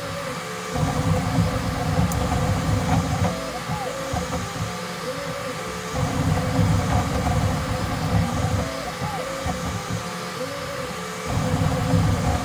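Bambu Lab X1C 3D printer printing at its fastest "ludicrous" speed setting: fans humming steadily and the stepper motors whining in quick rising and falling glides as the toolhead darts about. A heavier low buzz comes in for two or three seconds at a time, three times, about five seconds apart.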